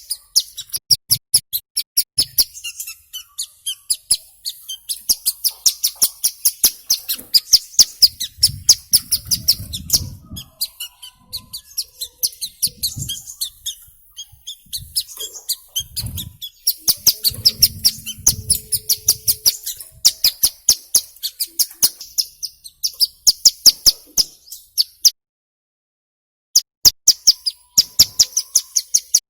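Ciblek gunung (a prinia) calling: rapid runs of short, sharp, high chirps, several a second. There are a few muffled low thumps midway, and the calling cuts out for about a second and a half near the end.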